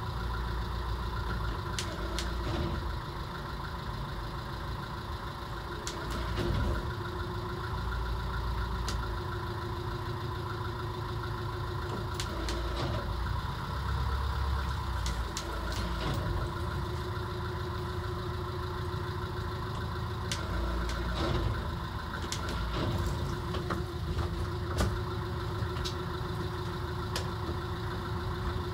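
Motor cruiser's inboard engine idling steadily, heard from inside the wheelhouse, with scattered light clicks.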